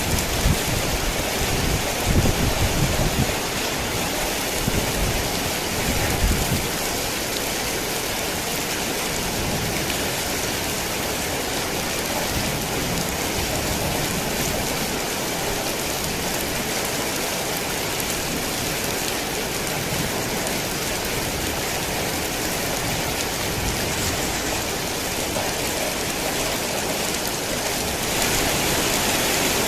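Heavy rain pouring steadily, with low rolls of thunder rumbling through the first six or seven seconds. Near the end the rain grows a little louder.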